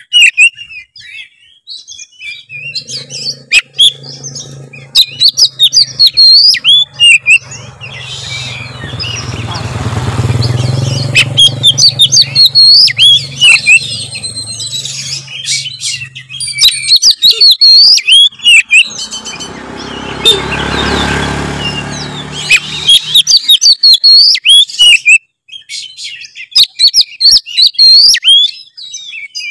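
Oriental magpie-robin (kacer) singing loudly in fast, varied, whistled phrases with brief pauses. Twice a low motor hum swells up and fades under the song, peaking about ten seconds in and again about twenty-one seconds in.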